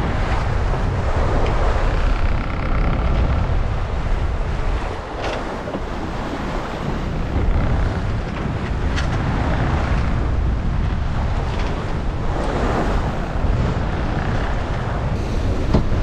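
Strong wind buffeting the microphone with a steady low rumble, over the rush of waves and spray along a sailboat's hull that swells up every few seconds as the boat meets the seas.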